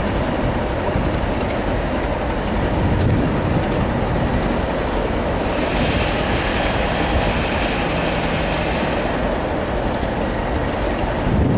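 Class 37 diesel-electric locomotive with its English Electric V12 engine running as it hauls tank wagons slowly through the station, wheels clicking over the rail joints. A high squeal from the wheels joins for about three seconds around the middle.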